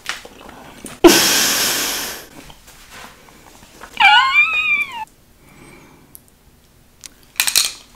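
A loud sudden rush of noise about a second in that fades away over about a second. Then, about four seconds in, a single meow-like call about a second long that rises and falls in pitch.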